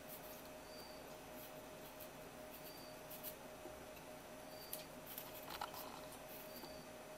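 Kitchen knife slicing fresh ginger root thin on a wooden cutting board: faint, irregular taps and scrapes of the blade, the most distinct about five and a half seconds in.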